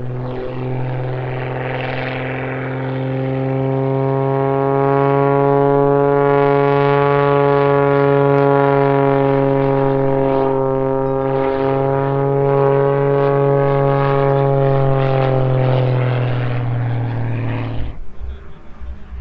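Aerobatic MXS monoplane's Lycoming AEIO-540 six-cylinder boxer engine and propeller droning steadily overhead, growing louder over the first few seconds, then sagging slightly in pitch. The engine sound drops away abruptly about a second before the end, leaving a gusty rumble.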